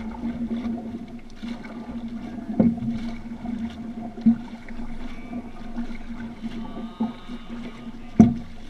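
Outrigger canoe drifting on calm water with a steady low hum, broken by a few sharp knocks on the hull, two of them loud, about two and a half seconds in and near the end.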